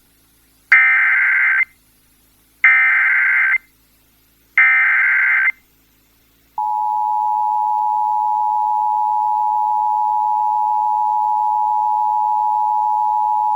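Emergency Alert System header tones: three bursts of SAME digital data, each about a second long, followed from about six and a half seconds in by the steady two-tone EAS attention signal (853 and 960 Hz), the alert that precedes a flood warning broadcast.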